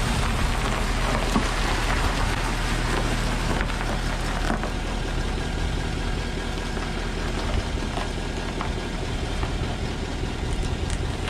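Engine of a Ford Super Duty dually pickup running at low speed as the truck creeps forward over gravel.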